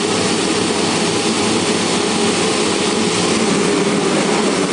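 Dozens of motocross bike engines running together at the start gate, a dense, steady din of many engines at once.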